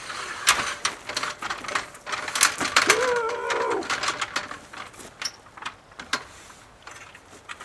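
Repeated clattering and knocking of hardware being handled, with a short squeaky creak about three seconds in.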